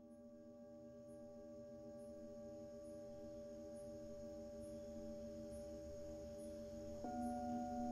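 Tibetan singing bowls ringing in long sustained tones that waver in a slow pulse and swell gradually. About seven seconds in another bowl is struck, adding a new, higher tone and making it louder. Faint high ticks recur about once a second.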